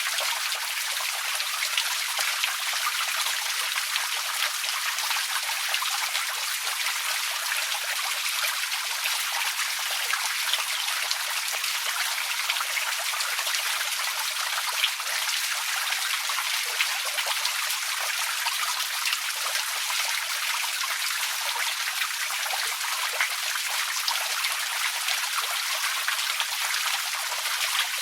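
Outdoor water fountain splashing steadily: a continuous hiss of falling water with a fine patter of drops and no low rumble.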